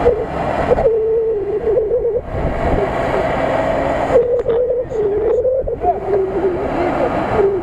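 Lada Niva (VAZ 2121) engine revving hard as its wheels spin in deep mud, the pitch wavering up and down as the revs rise and fall.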